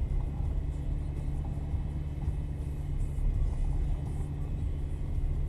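Car driving along, its engine and road noise making a steady low rumble.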